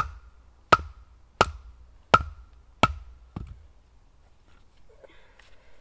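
Batoning: a wooden baton striking the spine of a knife six times in steady rhythm, each hit with a short ring, driving the blade down through a knotty log to split it.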